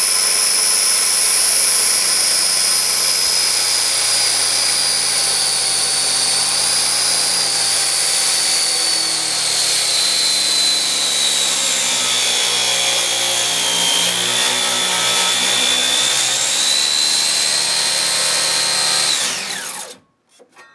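Corded circular saw with a 40-tooth blade cutting a partial-depth kerf along a wooden deck board, running with a loud, steady whine. Its pitch sags under load in the middle of the cut, and the saw winds down and stops near the end.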